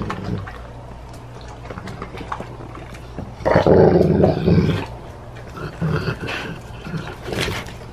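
A dog growling low over raw pork it is chewing, with a louder growl lasting over a second about three and a half seconds in and shorter ones later, between wet chewing and smacking sounds.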